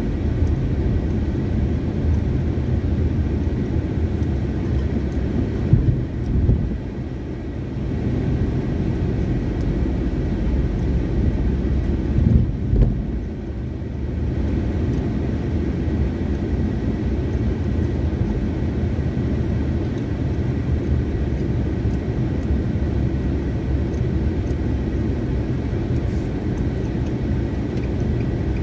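Steady low rumble of engine and tyre noise inside a moving car's cabin. Two brief louder bumps come about six and twelve seconds in.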